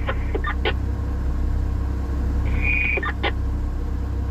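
Vehicle engine idling with a steady low hum. A few short chirps sound over it, along with a brief high tone about two and a half seconds in.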